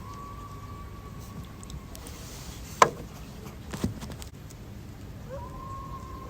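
Coyotes howling: a long, steady, high howl, then two sharp knocks about a second apart, then another howl that starts near the end and drops lower.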